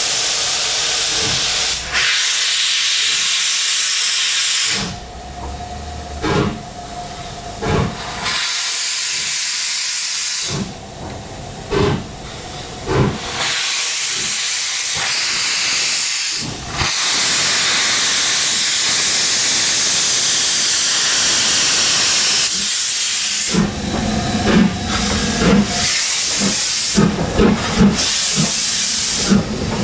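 Steam locomotive blowing off steam with a loud, steady hiss that drops away briefly several times. In the last few seconds a series of short, low beats comes in under the hiss.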